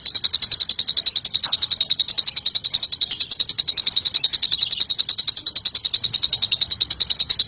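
A songbird's long, rapid trill in the cililin style used as masteran for green leafbirds: one high note repeated very evenly about ten times a second without a break, with a few faint higher chirps over it.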